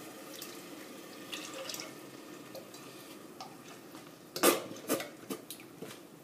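Thick tomato purée poured from a carton into a stainless steel saucepan: a faint steady pour, then a cluster of sharp wet plops and knocks a little over four seconds in.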